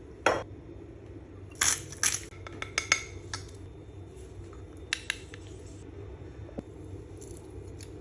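Kitchenware clinking and knocking: a series of sharp clicks and clinks, bunched together about two to three seconds in, with two more about five seconds in, over a steady low hum.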